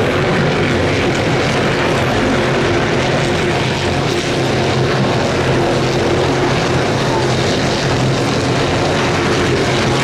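Stock Car race cars' engines running on the circuit, heard as a loud, steady drone with no single car clearly passing.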